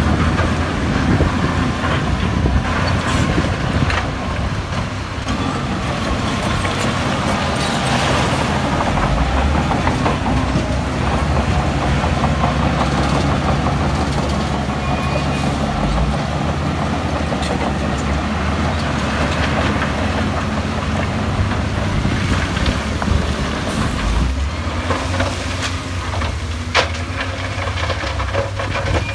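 Heavy diesel earthmoving machines, a bulldozer and a wheel loader, running under load, a steady low engine rumble with occasional knocks.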